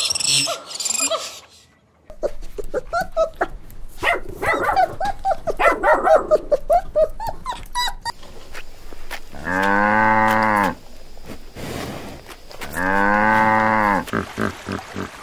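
A cow mooing twice, two long calls about three seconds apart that rise and fall in pitch. Before them come several seconds of short, high squeaks and whimpers from newborn puppies, and at the very start brief high chirps from monkeys.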